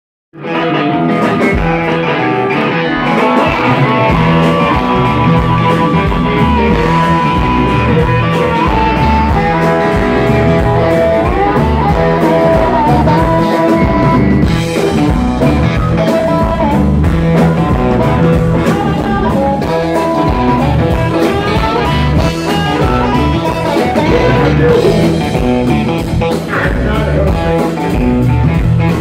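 Live blues-rock band playing loud, with electric guitar and drums under long wailing held notes from a harmonica played into a cupped microphone.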